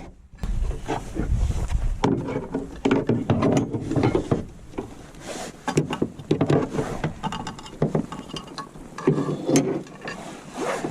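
Rope being wrapped around a snowmobile's primary clutch, with irregular clinks, clatter and rustling of metal tools against the clutch as the rope is set for a clutch pull start.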